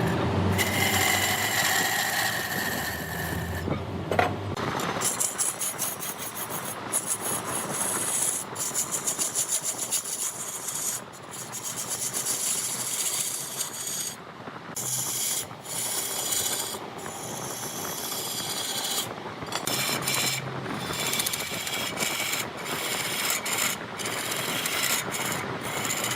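Cutting tool scraping against a wood log turning on a large wood lathe, a steady rasping with several abrupt short breaks. A faint high whine runs through the first few seconds.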